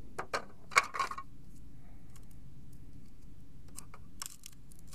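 Plastic toy sandwich pieces clicking and clattering as a hand picks through their cardboard box. A few sharp clicks come in the first second, and softer ones come near the end as a piece is set down.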